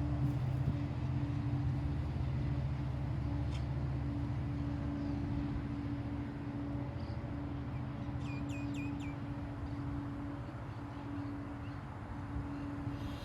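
A steady low motor hum holding two even tones. About eight seconds in, a bird gives four quick chirps that drop in pitch.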